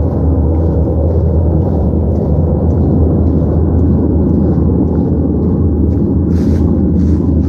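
Loud, steady, low rumbling drone, with faint ticks above it and a brief hiss about six seconds in: a recording of one of the reported 'strange sounds from the sky'.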